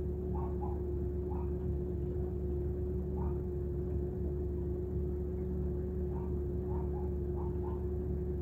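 Steady low hum with a constant mid-pitched tone, heard from inside a car, overlaid by short chirping calls that come in ones and twos about once a second.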